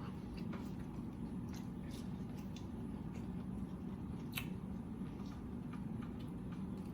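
A person chewing food close to the microphone: scattered soft clicks and wet smacks, one sharper click about four seconds in, over a steady low hum.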